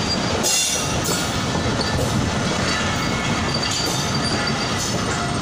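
Shah Latif Express passenger coaches rolling past, a steady rumble of steel wheels on rail, with brief faint high squeals from the wheels now and then.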